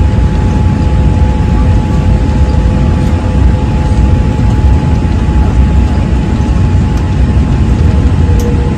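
Airliner cabin noise: a steady, loud low rumble of engines and airflow with two faint steady tones running through it.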